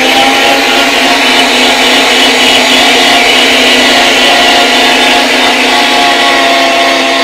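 Electric meat grinder running loud and steady, a motor whine with several held tones, as seasoned cubes of pork neck and belly are fed through it. It eases off slightly near the end.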